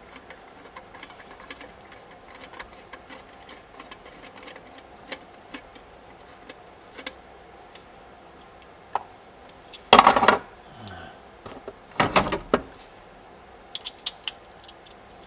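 Small repeated clicks of a T15 Torx driver turning out the screws that hold the OnStar module. Two louder clatters come about ten and twelve seconds in, and a quick run of clicks near the end.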